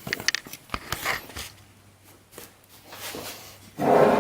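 Hand tools and engine parts being handled on a workbench: a few sharp clicks and knocks in the first second and a half, then quieter rattling, with a louder knock or clatter near the end.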